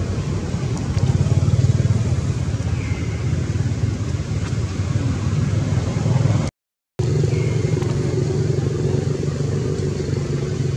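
A motor vehicle engine running steadily, a continuous low hum. The sound cuts out for about half a second just past the middle.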